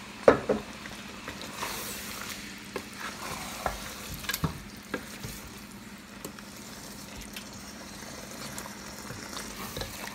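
Wooden spatula stirring a metal pot of cassava leaf stew, scraping and knocking against the pot over a steady sizzle from the hot stew. The loudest knocks come right at the start and about four and a half seconds in.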